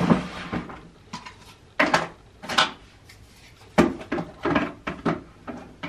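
Small hard objects clattering and knocking as someone handles and rummages through things, with a string of separate clicks and knocks, the busiest stretch about four seconds in.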